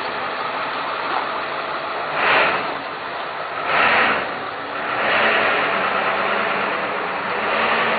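Vehicle engine idling under a steady hiss, with two short, louder rushes of noise about two and four seconds in.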